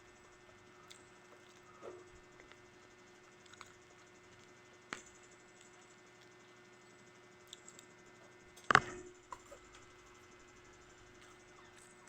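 Scattered light knocks and clicks of eating at a table over a faint steady hum. The loudest knock comes about three-quarters of the way through.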